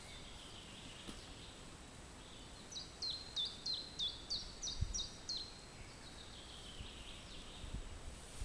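A songbird singing a quick run of about eight repeated two-part notes, each stepping down in pitch, over a faint steady outdoor hiss. There is one soft low thump partway through the song.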